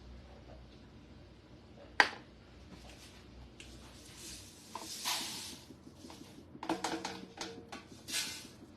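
A sharp click about two seconds in, then dry rice rustling as it is poured out to be measured, with a few light clicks and clatters near the end.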